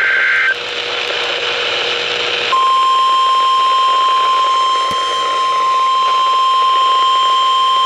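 NOAA Weather Radio Emergency Alert System alert over the radio: a screeching two-tone SAME data burst cuts off about half a second in, followed by static hiss. About two and a half seconds in, the steady 1050 Hz warning alarm tone starts and holds, the signal that a warning follows.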